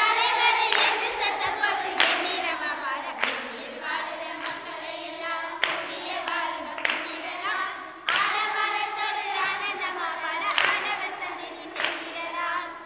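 A group of voices singing together, kept in time by a sharp percussive strike about every second and a quarter.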